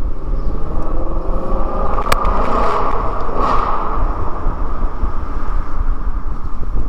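Shelby GT350's 5.2-litre flat-plane-crank V8 exhaust heard through an open window inside a tunnel, with a heavy rumble and the engine revving up about two seconds in.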